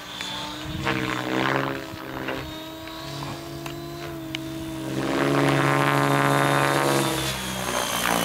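Electric Forza 700 RC helicopter flying overhead: a steady whine from its motor and main rotor, made of several pitched tones that shift slightly in pitch, growing louder about five seconds in.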